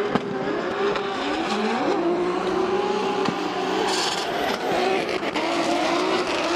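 Two BMW 3-series drift cars at full throttle in a tandem drift, their engines singing hard with the pitch swinging up and down as the drivers work the throttle. Their tyres squeal and scrub through the slide.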